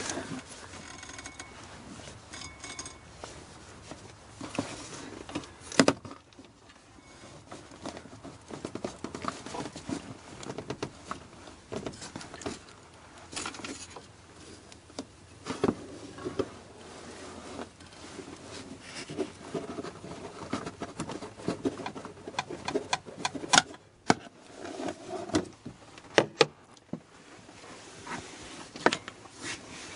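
Scattered clicks and sharp metal knocks of a wrench on a serpentine belt tensioner, with hands handling the belt and pulleys in an engine bay. The tensioner is turned counterclockwise to slacken the belt and take it off.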